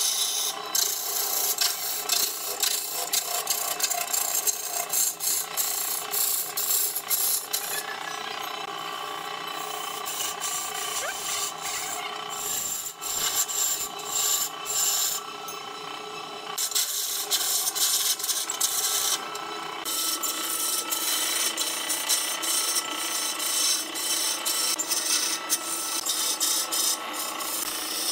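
Wood turning on a belt-driven lathe: a hand-held chisel scraping and cutting into the spinning wood and throwing off chips, over a steady hum from the lathe's electric motor. The cutting stops briefly a few times as the tool is lifted.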